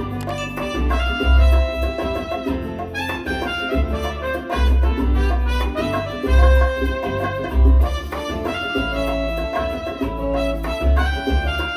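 Upbeat music with saxophone and brass over a strong, pulsing bass line, played back through KEF LSX wireless speakers.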